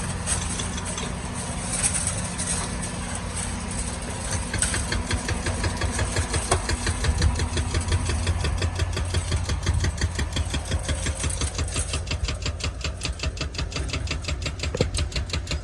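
Mini excavator's diesel engine running steadily. From about four and a half seconds in, a fast, even pulsing rides on top of it.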